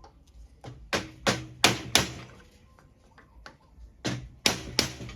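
Hammer blows on metal, most likely a copper bar being shaped: four quick strikes about a second in, then three more about four seconds in, each ringing briefly.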